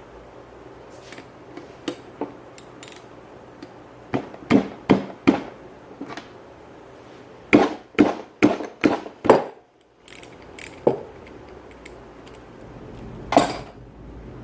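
Hammer blows on the metal parts of an old Columbian vise being knocked apart: three strikes about four seconds in, a quick run of five or six a few seconds later, then a few lighter knocks and one last blow near the end.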